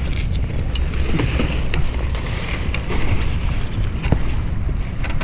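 Wind buffeting the microphone in a steady low rumble, with scattered short rustles and clicks from leafy branches being handled.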